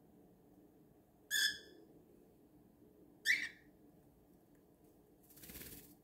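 Cockatiel giving two short chirping calls about two seconds apart, followed near the end by a brief rustle as it fluffs up its feathers.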